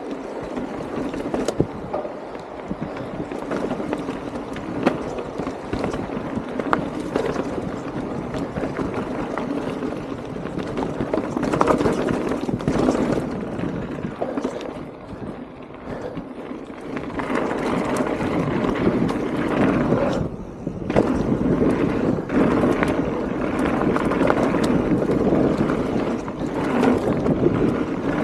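Mountain bike riding down a wet dirt trail: the tyres roll over dirt and rocks, with sharp knocks and rattles from the bike over bumps. It gets louder in the second half.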